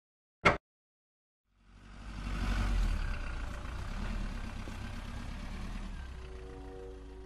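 A short sharp click about half a second in, then a cartoon car engine sound effect that starts up with a low rumble and slowly fades as the toy car drives away. Music begins near the end.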